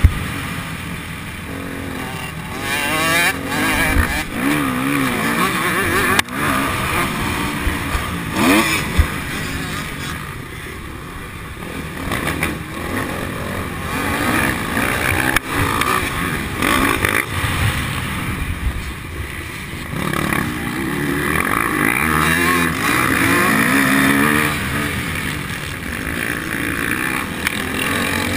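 Motocross dirt bike engine, heard close up from onboard the bike, revving up and falling back again and again as it races along a dirt track.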